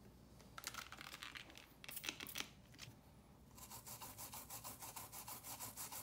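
Toothbrush bristles scrubbing flux residue off the freshly soldered joints of an Ableton Push 2 circuit board: a couple of short bouts of scrubbing, then brisk, even back-and-forth strokes at about six a second.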